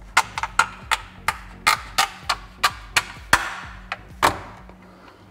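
A quick, uneven run of about a dozen sharp clicks and knocks, about three a second, as hands press and snap parts into place on an LED drawer-light fitting and its cable tray inside a kitchen cabinet.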